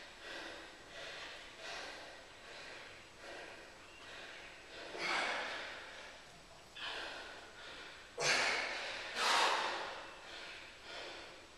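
A man breathing hard with exertion during a set of bar dips: short, regular breaths at first, then louder, forceful exhales about five seconds in and twice more near the end as he strains.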